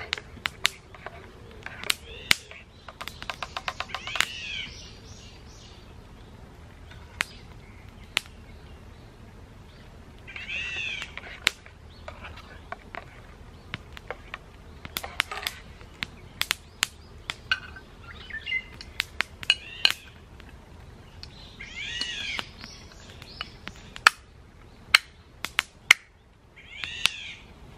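A metal fork clinking and scraping in a small steel cup, many sharp clicks, over a crackling campfire. A high, arching animal call, rising and then falling, comes back every few seconds.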